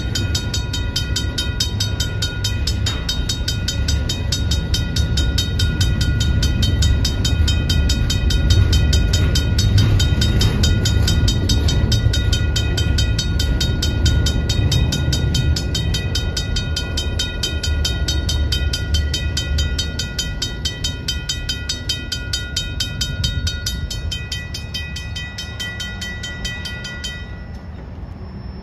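Freight cars of a long, slow intermodal train rumbling over a level crossing, with the crossing's Griswold/RACO mechanical bell ringing rapidly and steadily over it. The rumble fades over the last several seconds as the end of the train passes. The bell cuts off about a second before the end, as the gates begin to rise.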